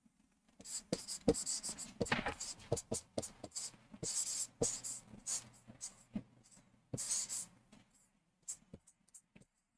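Felt-tip marker writing on a whiteboard: a quick run of short scratchy strokes, with sharp taps as the tip touches down, thinning out to a few taps after about eight seconds.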